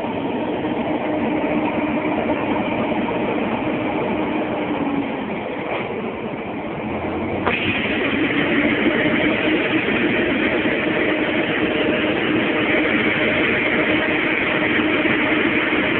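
John Deere CTS rice combine running while it unloads rice through its auger into a trailer: a steady mechanical drone of engine and auger with the hiss of grain pouring. The hiss gets suddenly louder about seven and a half seconds in.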